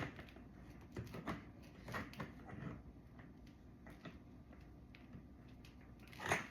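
Parts of an AB Carver Pro ab roller being handled for assembly: a scatter of light clicks and knocks, with a sharper clack near the end.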